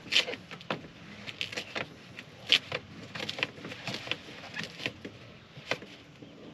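Plastic vapor barrier sheet on a truck door being pulled off the black sticky sealant strip, with irregular crackles and clicks. A few sharper snaps come near the start, about two and a half seconds in, and near the end.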